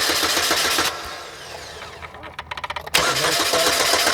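Pontiac Sunfire engine cranking over on the starter in a steady, even rhythm without catching, stopping about a second in and cranking again near the end. It is a crank-no-start: fuel is reaching the cylinders and the owner blames an electrical fault.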